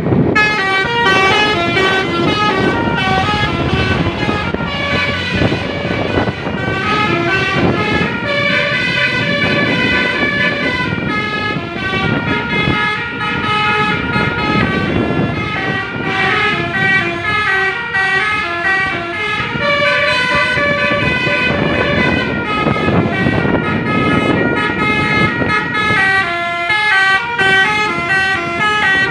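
Basuri telolet bus horn, an electric multi-trumpet horn, playing loud, rapid melodic runs: its several tones step up and down in quick, repeating sequences without a break. A rough low rumble runs underneath.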